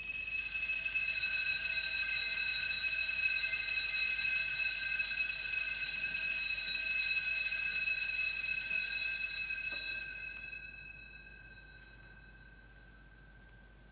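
Altar bells rung continuously at the elevation of the consecrated host: a bright ringing of several high tones that stops about ten seconds in and dies away over the next two or three seconds.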